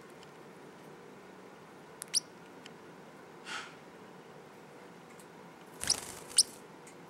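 Young parrotlet giving short, high-pitched squeaky chirps: a quick pair about two seconds in and two louder ones around six seconds in, the second the loudest. Just before the last chirps comes a brief flutter of her wings.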